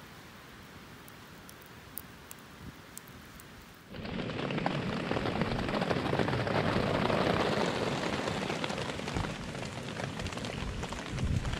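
Faint steady hiss with a few small ticks, then about four seconds in, heavy rain starts abruptly and falls steadily.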